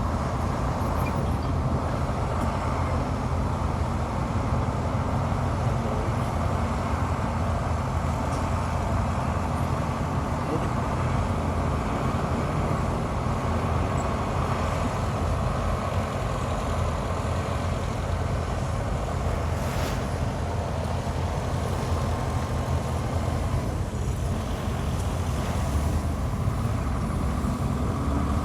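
Heavy diesel earthmoving machinery running steadily, a continuous low engine drone, with one short sharp click about two-thirds of the way through.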